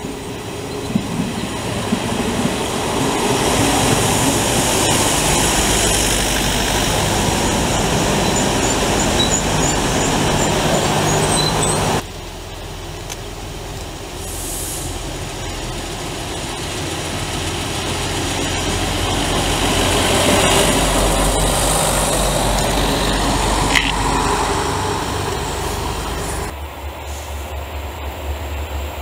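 Trains passing through stations, in three clips. First a Renfe passenger train runs in along the platform with steady rolling and engine noise, cut off suddenly. Then another train passes, growing louder toward the middle, and near the end comes the low rumble of a distant train approaching.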